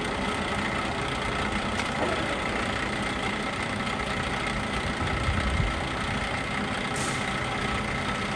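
LeBlond 3220-34 heavy-duty engine lathe running with its spindle and large faceplate turning: a steady machine hum with two high whine tones. A short low thump comes a little past halfway.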